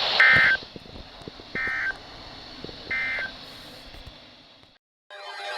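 Three short EAS end-of-message data bursts from NOAA Weather Radio, about a second and a half apart, over radio static that fades away; this is the coded signal that closes a warning broadcast. Music starts near the end.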